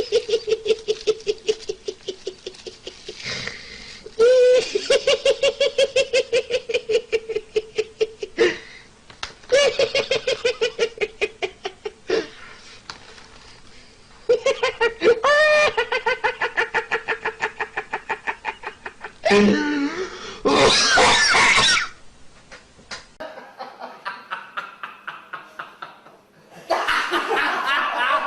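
Laughter: a run of hearty, high-pitched laughs in bouts of a few seconds, each a quick string of ha-ha pulses, about six a second. A different, harsher laugh comes in about two-thirds of the way through, and another bout starts near the end.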